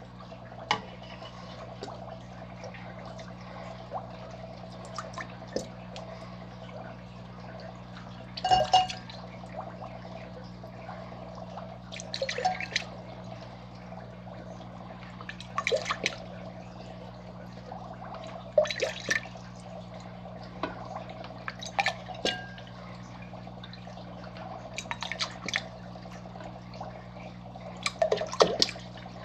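Turkey baster drawing up and squirting out water in short splashy bursts, about one every three to four seconds, as Daphnia are washed down and transferred into a cup. A steady low hum runs underneath.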